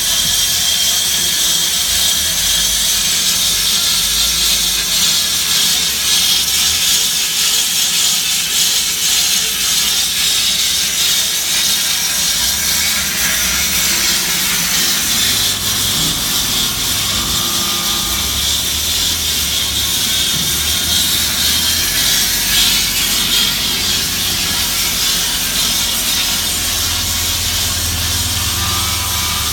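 Cosen C-320NC fully automatic band saw running, a steady high hiss over a low machine hum.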